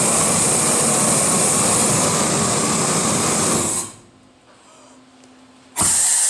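Propane-and-compressed-air heating torch rated at 1,000,000 BTU, running flat out with a loud, steady rush while preheating a cast-iron clutch bell housing. It cuts off abruptly about four seconds in, and a second short blast of the same rush comes near the end.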